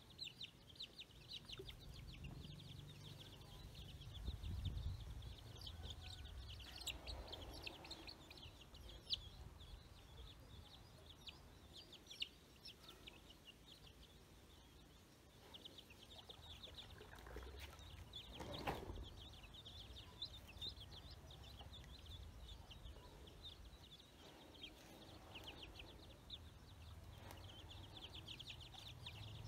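Ducklings peeping: a faint, near-continuous stream of short, high peeps, with one louder call a little past the middle and a low rumble a few seconds in.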